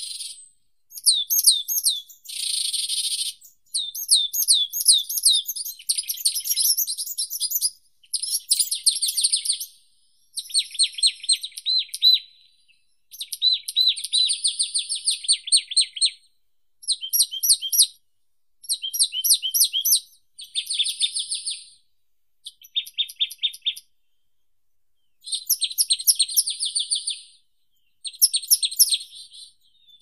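Songbird song: a steady string of short, fast trilled phrases of rapidly repeated high notes, each phrase a second or two long with brief pauses between them.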